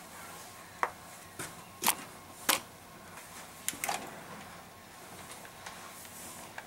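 A few separate sharp clicks and light knocks in a small room, the loudest about two and a half seconds in, then fainter ticks, as of small objects being handled on a desk.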